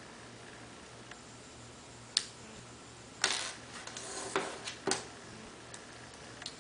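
An iPhone 4's SIM tray being ejected with a SIM eject tool: a sharp click about two seconds in, then about two seconds of small plastic-and-metal scraping and clicking as the tray is pushed out and slid free.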